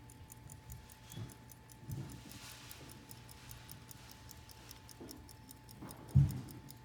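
An 1890s F. Jacob Matile 13-jewel lever pocket watch movement ticking fast and evenly. A few soft knocks come from the watch being handled, with a louder bump about six seconds in.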